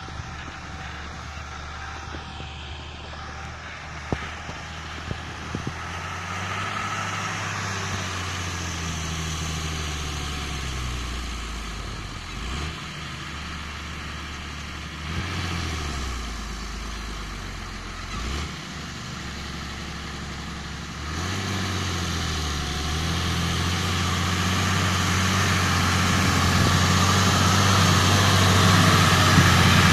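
Belarus MTZ-1221 tractor's D-260 six-cylinder turbodiesel running while pulling a PPO 4-40 plough. The engine note drops and rises again twice midway, then grows steadily louder as the tractor comes close.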